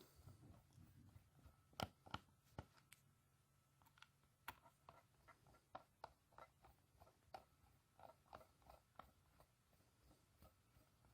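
Near silence: a low hum with faint, irregular clicks and crackles scattered through it.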